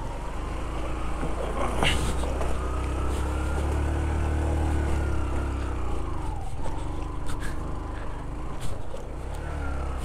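Motorcycle engine running under load on a rough dirt road, revs climbing over the first few seconds, dropping off past the middle and rising again near the end. A sharp knock sounds about two seconds in.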